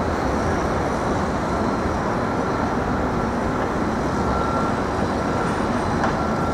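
Steady traffic noise from a busy city street, an even wash of sound with a faint high steady tone.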